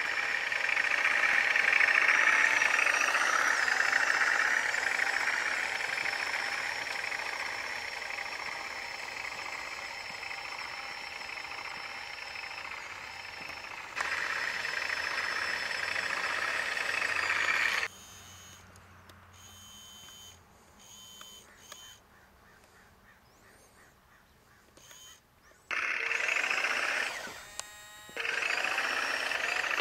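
Radio-controlled M1A1 Abrams toy tank driving on asphalt: the steady whine and rattle of its small electric motors, gearboxes and plastic tracks. It drops much quieter for several seconds past the middle, then picks up again near the end with a short run of rapid clicks.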